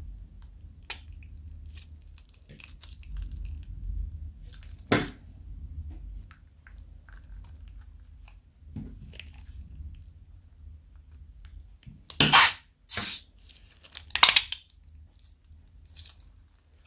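Small plastic zip-lock bags of runny clay slime being handled and squeezed out into a glass bowl: scattered soft squishing and plastic crinkling, with three louder, brief crinkles about twelve to fourteen and a half seconds in.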